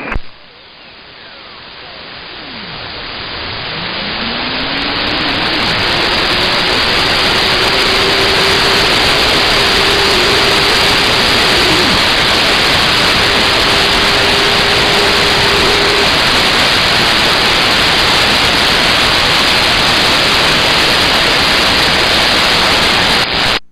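CB radio receiver hissing with loud band static, the noise swelling over the first few seconds and then holding steady. A whistling carrier tone slides up in pitch and holds for several seconds, a second steady whistle comes in briefly, and the hiss cuts off sharply near the end.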